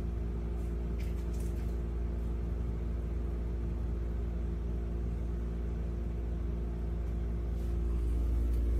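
Steady low mechanical hum with several steady tones layered over it, running evenly throughout; a couple of faint light taps about a second in.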